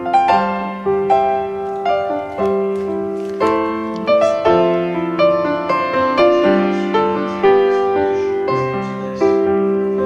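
Background piano music: a gentle melody of struck notes that each ring and fade, played over chords.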